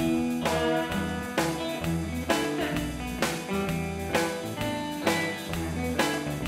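Background music with a steady beat: a strong drum hit about once a second under sustained instrument notes.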